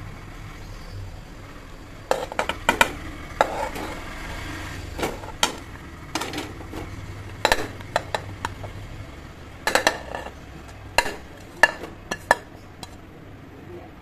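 Chunks of raw potato dropped by hand into an open aluminium pressure cooker, knocking and clattering against the metal pot. About twenty sharp, irregular knocks, some in quick runs, stopping shortly before the end.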